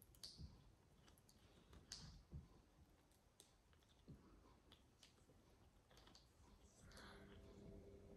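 Blue-and-gold macaw's beak working on a walnut: faint, irregular clicks and cracks of beak on shell and nut, with a few sharper ones.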